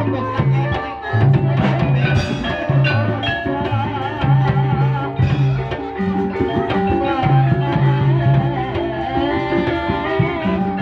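Gamelan ensemble playing: xylophone-like keyed instruments and drumming over a deep, repeating bass pattern.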